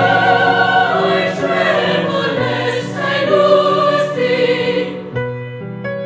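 Choral music: a choir singing slow, held chords. About five seconds in the voices drop out and piano chords carry on.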